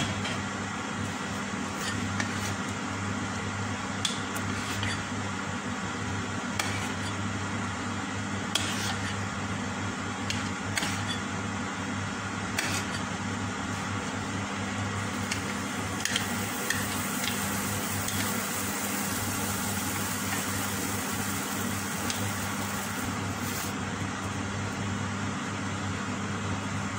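Steady low electrical hum from the running stove, with a few light ticks. Past the middle, a brighter hiss builds for several seconds, fitting ube hotcake batter sizzling in the hot nonstick pan.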